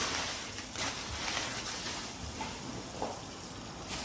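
Quiet handling noise: shopping bags and items being moved about, with a few soft rustles and knocks.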